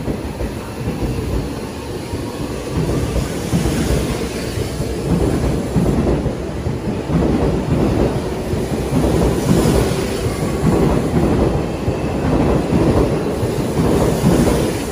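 Electric commuter train pulling out of a station and gathering speed alongside the platform. Its running rumble and wheel rattle grow louder over the first few seconds, then hold steady.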